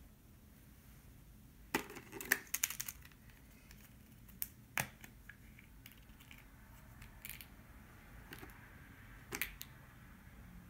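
Small clear plastic toy capsule being handled and opened by hand: a quick cluster of sharp plastic clicks about two seconds in, then scattered single clicks.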